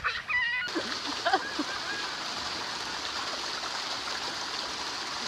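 Steady rushing of water running down an open spiral water slide as a man slides along it. Brief high voices at the very start, then a sudden cut to the water sound.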